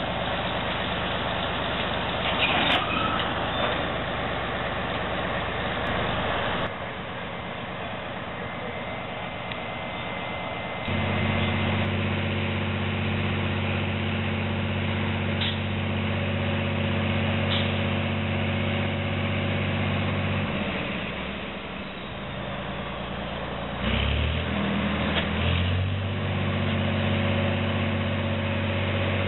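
Heavy diesel engine running steadily. It drops away for a few seconds, then revs back up, with a few sharp metallic knocks.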